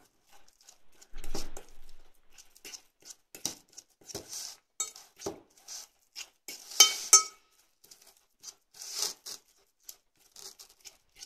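Toddler sucking and biting on a lemon half: scattered wet mouth clicks and smacks, with a louder sharp click about seven seconds in.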